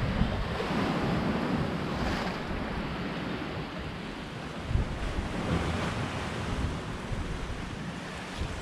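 Surf washing on a sea shore, with gusts of wind buffeting the microphone.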